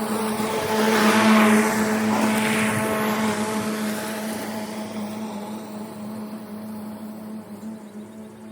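Battery-electric zero-turn mower's blade motors running with a steady hum. A louder rushing sound swells about a second in and then fades away.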